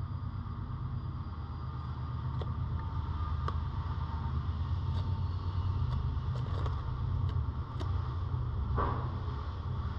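Rabbit digging at a corrugated cardboard scratcher: scattered light clicks and crackles of cardboard, then one louder scrape near the end. Under them runs a steady low rumble, all muffled by a camera case.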